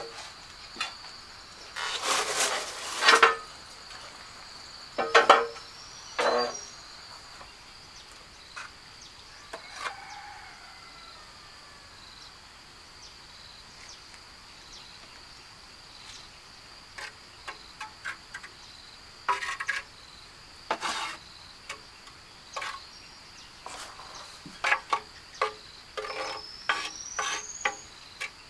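A steady high insect trill, like a cricket, runs throughout. Over it come scattered knocks and scrapes, loudest in a cluster about two to three seconds in and again in quick runs near the end, and a short rising whistle near the end.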